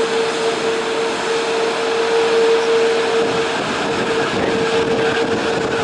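Rolls-Royce Trent 1000 turbofans of a British Airways Boeing 787-9 running at taxi power as the airliner rolls past: a steady whine, one strong held tone over an even rushing noise.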